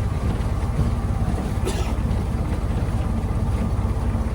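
Ford Model T's four-cylinder engine running steadily with a rapid low beat, heard from aboard the car as it drives.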